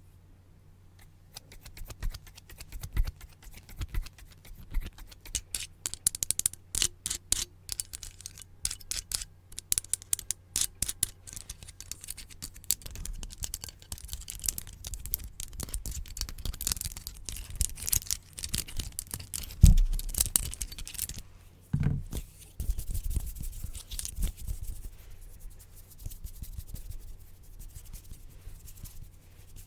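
Close-miked ASMR triggers: rapid, crisp scissor snips and clicks for the first half, then denser scratching and scraping. A low thump comes about 20 seconds in.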